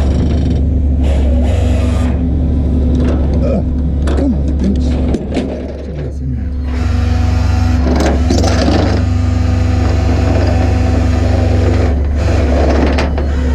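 Tow truck's engine running steadily with a deep, constant drone. About five seconds in the pitch shifts briefly and the level dips.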